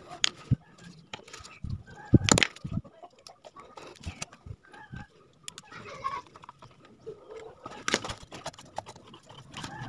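A Shimizu water pump motor's plastic fan cover being handled and pressed onto the motor end: scattered plastic clicks and knocks, the loudest about two seconds in and again near eight seconds.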